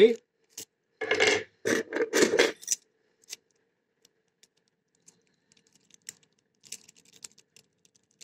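Metal jiggler keys jangling together on their ring for about two seconds, then faint scratching and ticking as a jiggler key is worked inside a simple wafer lock.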